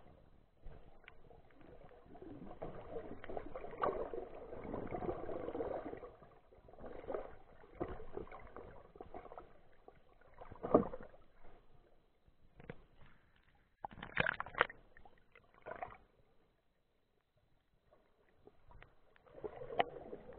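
Muffled underwater sound through a camera's waterproof housing: water rushing and gurgling past, with scattered sharp knocks and bumps, the loudest a little past halfway.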